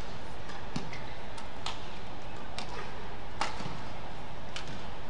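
Badminton rally: rackets strike the shuttlecock in a string of sharp cracks, irregular and roughly one a second, over a steady background hubbub.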